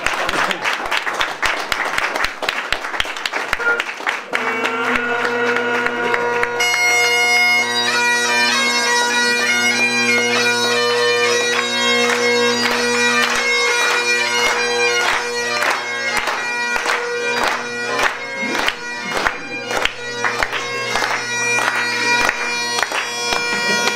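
Guests applauding. About four seconds in, bagpipes strike up: first the steady drones, then a couple of seconds later the chanter playing a tune over them. Clapping continues throughout.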